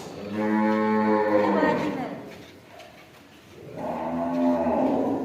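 A cow mooing twice: two long, low calls, the second starting just under four seconds in, each dropping in pitch as it ends.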